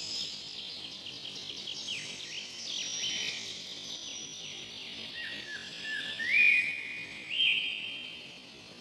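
Several forest songbirds chirping and singing over one another in quick, high, overlapping calls. About six to seven and a half seconds in, a louder bird gives clear whistled notes that step up in pitch.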